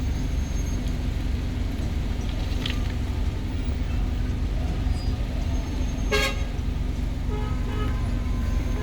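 Steady rumble of road traffic with short vehicle horn toots: a faint one near three seconds in and a louder one about six seconds in.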